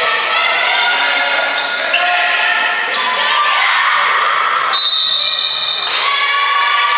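Gym noise during a volleyball match: many voices in the crowd, sneaker squeaks and ball impacts on the court. A shrill steady tone sounds for about a second, around five seconds in.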